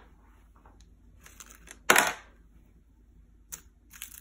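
Hard stones being handled at a glass jar: one sharp clack about two seconds in, then a few faint ticks near the end.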